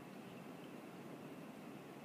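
Faint steady hiss with no distinct events: room tone.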